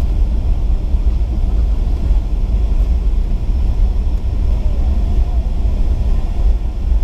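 Boeing 757-300 airliner heard from the passenger cabin, a loud, steady low rumble as it rolls along the ground after landing.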